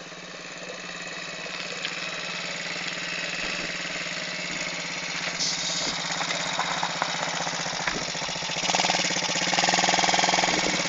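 Small engine of a child's quad bike running at low speed, getting steadily louder as the quad draws near, and louder again near the end as it passes close.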